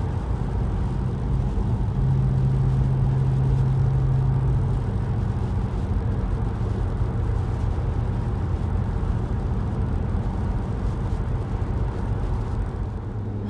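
Car driving on a highway, heard from inside the cabin: steady road and engine noise with a low hum that is strongest a few seconds in.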